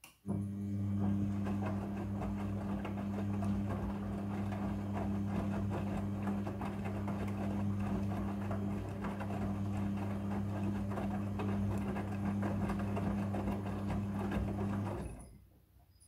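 Midea front-loading washing machine's drum motor running through one wash-tumble turn, a steady hum with wet clothes tumbling in the drum. It starts just after the beginning and stops abruptly about a second before the end, a pause in the wash cycle's turning.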